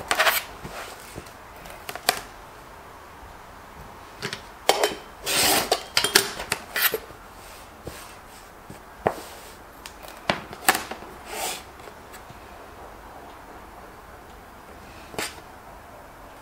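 A clear acrylic quilting ruler and fabric being handled on a cutting mat: scattered taps and clicks as the ruler is set down and lifted, with short scraping rustles as fabric and ruler slide. The busiest, loudest stretch comes about five to seven seconds in.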